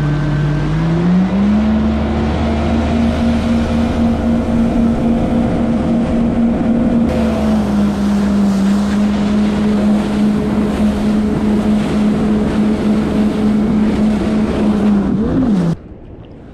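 Yamaha jet ski engine running at speed, its pitch rising about a second in as the throttle opens and then holding steady, over the rush of water and wind. Near the end the engine note falls and the sound drops away suddenly.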